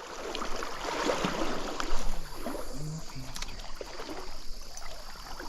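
Stream water sloshing and trickling around a wader, with a brief louder splash about two seconds in.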